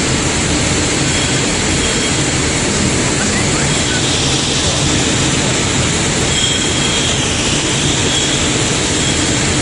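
Steady machinery noise of an automatic powder coating line running, an even rushing hum with faint thin high tones that come and go.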